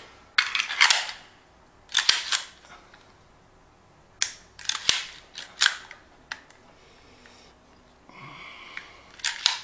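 Metal clicks and clacks from a Desert Eagle semi-automatic pistol being handled: the magazine is taken out and the slide is worked. The clicks come in several short clusters, with a brief sliding scrape a little after eight seconds.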